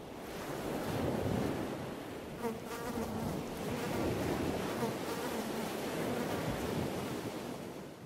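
Surf washing on a beach with wind, swelling in and easing off towards the end, with a buzzing drone over it from about two and a half to five seconds in.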